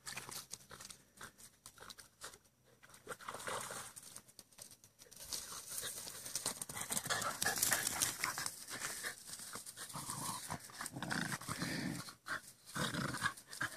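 Dogs panting and scuffling as they play after a swim, with irregular rustling through the clip that grows busier in the second half.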